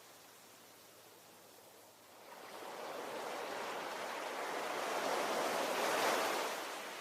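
Ocean waves: a quiet lull, then a wave breaking and washing in, swelling about two seconds in, peaking near the end and falling away.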